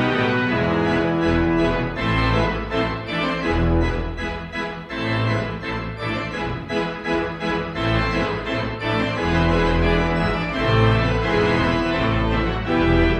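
Instrumental music with held chords over a bass line, the notes changing about once a second.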